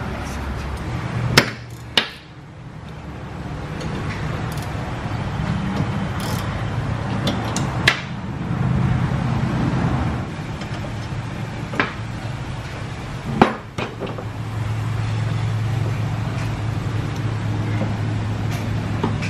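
Sharp clinks of hand tools and brake hardware being handled and set down on a steel workbench, about five at irregular intervals, over a steady low hum from the shop.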